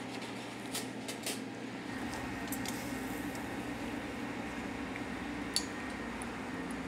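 Metal spoon clinking against a stainless steel sauté pan while stirring vegetables in chicken stock: a few sharp clinks scattered through, over a steady low hum.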